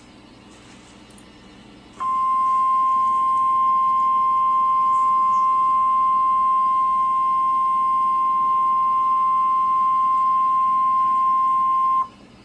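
NOAA Weather Radio's 1050 Hz warning alarm tone: one steady, loud beep of about ten seconds that starts about two seconds in over faint radio hiss and cuts off abruptly. It is the attention signal that an emergency alert message, here a tornado watch, is about to be read.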